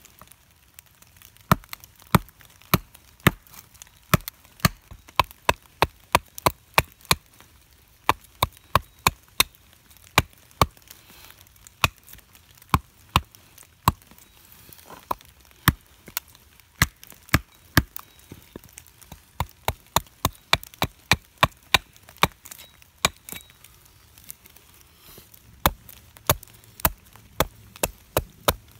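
Carving axe chopping into a green sugar maple spoon blank held on a stump: a run of sharp chops, about two a second, with a short pause late on.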